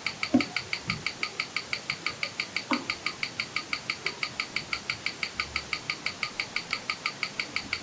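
Seagull ST1901 mechanical watch movement ticking steadily at about six beats a second, picked up and played back through a timegrapher's speaker. A couple of faint knocks come about half a second in and again near the three-second mark.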